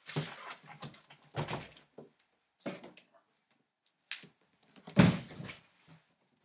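A child car seat being pulled out of its cardboard box: a series of short scraping, rustling knocks, with one heavy thump about five seconds in.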